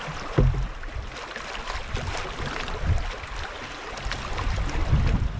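Rushing river water around a moving canoe, with a few dull low thumps: the strongest about half a second in, others near three and five seconds.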